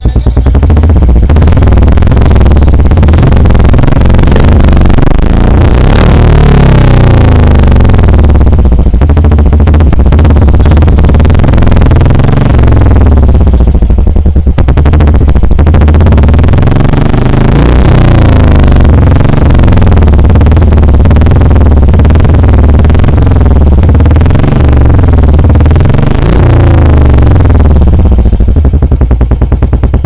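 Loud Royal Enfield Bullet 350 single-cylinder engine running through an aftermarket chrome Cobra silencer packed with ceramic wool. It idles and is revved several times, the pitch rising and falling with each rev.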